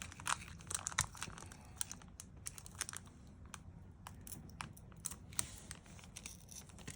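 Foil wrapper of a Pokémon booster pack crinkling and tearing as it is ripped open by hand, in scattered sharp crackles. The tear goes badly: a bad rip.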